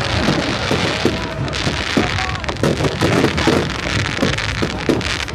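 Fireworks display: a rapid run of sharp bangs and pops over a dense crackling hiss from exploding shells and crackling stars.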